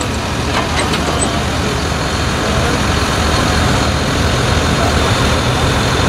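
John Deere 6195M tractor's six-cylinder diesel engine running with a steady low hum while its front and rear mowers are lifted. A few faint clicks come about a second in.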